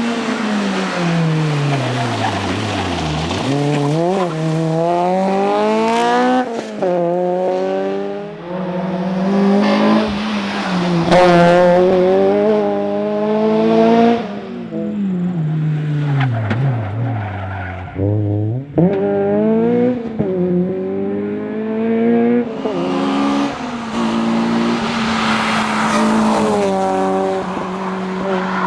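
Honda Integra Type R's four-cylinder engine heard from inside the car at competition pace. The revs climb hard and drop again many times through gear changes and braking, then hold steady for several seconds near the end.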